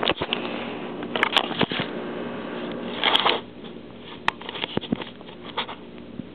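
Handling noise of a camera being moved and steadied: bursts of rustling and sharp clicks in the first half, the loudest about three seconds in, then a drop to a quieter steady background with scattered light clicks.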